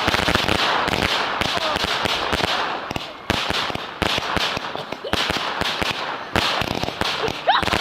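Fireworks crackling: a dense, rapid string of sharp pops that keeps going without a break, dipping briefly about three seconds in and then coming back at once.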